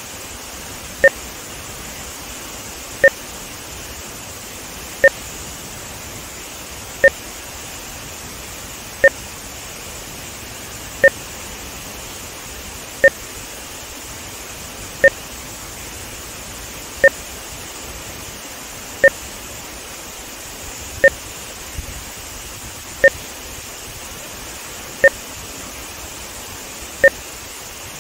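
Short electronic beeps every two seconds, a sync test signal added for VideoMultimeter's audio-video timing measurement, over the steady rush of water from the Tammerkoski rapids pouring past a dam.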